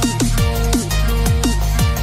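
Electronic background music with a steady beat and repeated downward-sliding synth notes.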